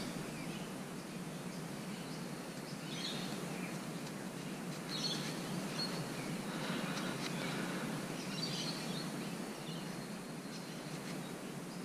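Quiet outdoor ambience: a steady hiss of background noise with a few faint, short bird chirps scattered through it.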